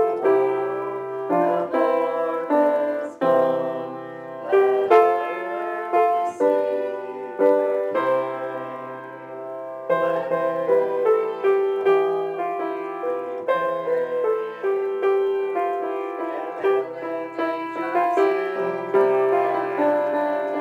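Piano playing a tune in chords, each chord struck and left to ring before the next, at a moderate, even pace.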